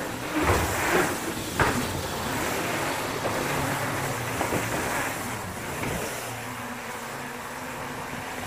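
Mountain bike being ridden along a dirt trail: a steady rush of tyre and wind noise, with a few sharp knocks and rattles from the bike over bumps in the first two seconds and a faint low hum underneath.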